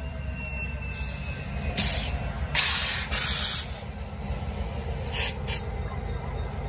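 Canadian Pacific GP20C diesel locomotive idling with a steady low rumble, broken by four short bursts of compressed-air hiss, the longest about a second.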